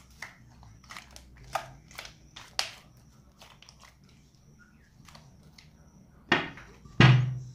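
Butter slime (slime being worked together with softened clay) squishing, clicking and popping as it is kneaded and stretched by hand, in irregular small pops, with two louder squelches near the end.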